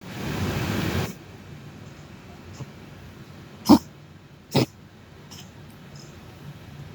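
A pet animal coughing: two short, sharp coughs about a second apart, the first the louder, after a second of loud, rough noise at the start.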